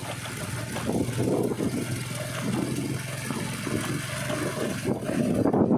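Motorcycle engine running steadily on the move, with wind noise rushing over the microphone.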